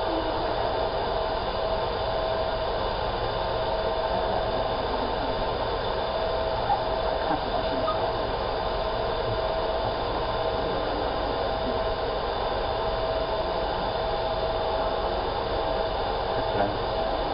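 Laser marking machine running steadily while it engraves, a constant whir and hum with one steady tone, and a few small clicks about midway and near the end.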